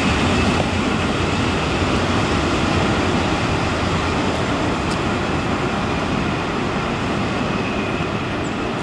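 Small electric locomotive hauling a train of carriages away along the track: a steady rumble of wheels on rail that slowly fades, with a faint steady high tone above it.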